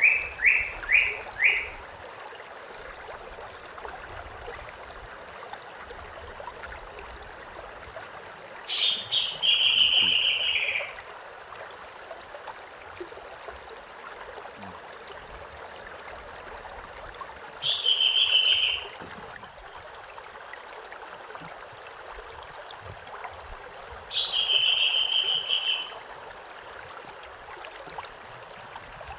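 Running river water making a steady rushing sound, with a small bird singing over it: a quick run of falling notes right at the start, then a short trilled phrase three more times, about nine, eighteen and twenty-four seconds in.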